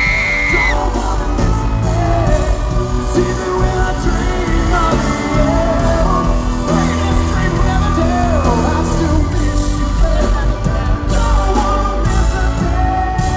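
Live rock band with a male lead singer performing a power ballad through an arena PA, recorded from among the crowd.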